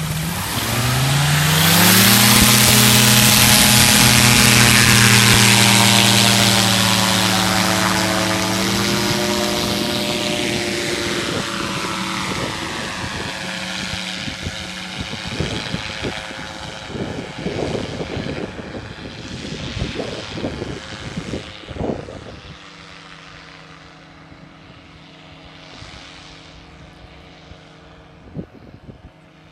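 Powered parachute's engine and pusher propeller revving up to full power for the takeoff run, a loud steady drone. About nine seconds in it rises a little in pitch, then fades gradually with a sweeping whoosh as the craft climbs away, ending as a faint distant drone.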